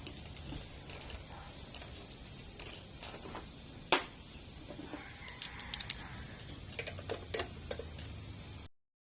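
Scattered metal clicks and taps of hand tools and small parts being worked loose while a Snapper lawn mower engine is taken apart, with one sharp click about four seconds in and quick runs of clicks after it. The sound cuts off abruptly near the end.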